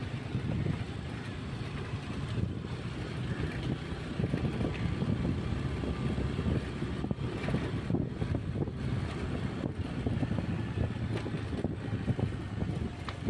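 Uneven low rumble of wind buffeting the microphone outdoors, with a fainter steady background hiss.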